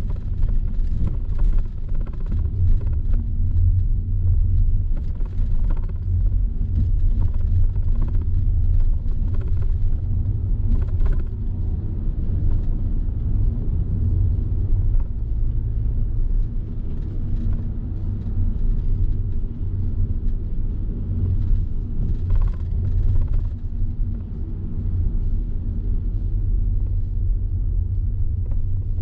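Steady low rumble of a car on the move, mostly road and wind noise, with faint scattered ticks and rattles.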